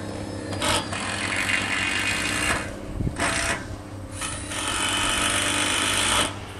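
A power tool running in three bursts, a short one in the middle and a longer one of about two seconds near the end, over a steady low hum.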